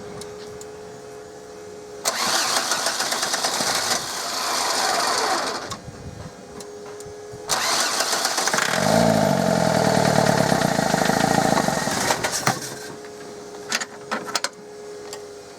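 Starter cranking the Audi A6's 1.9 TDI diesel engine in two attempts, about four and five seconds long, with a short pause between them; the engine does not start.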